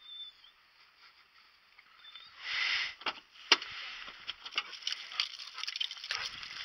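Footsteps crunching on loose gravel, heard as irregular short clicks and crunches over a hiss of clothing rustle, starting after a louder brief rustle about two and a half seconds in.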